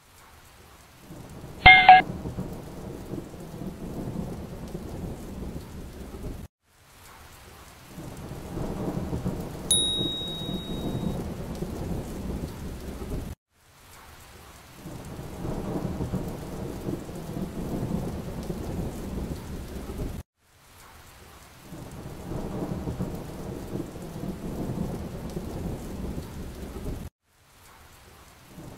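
Rain and thunder storm ambience, in stretches of about seven seconds that fade in and cut off with short silent gaps between. A short, loud, sharp sound about two seconds in.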